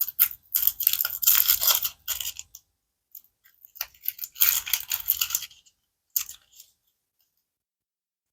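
Packaging being handled and unwrapped by hand, crinkling and rustling in three spells: two long ones and a short one near the end.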